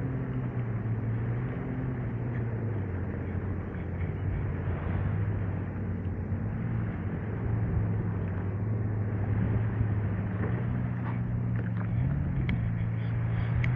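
Jet ski engine running steadily under way, with a steady hiss over it. The engine note rises a little about twelve seconds in.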